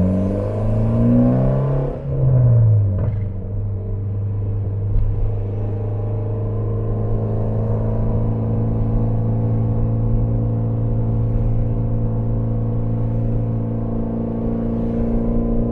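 Mitsubishi Lancer Evolution X's turbocharged 2.0-litre four-cylinder through an ETS straight-pipe exhaust, heard from inside the car with the back window open while driving. The engine pitch climbs and then drops at a gear change in the first two seconds or so, then holds steady as the car cruises.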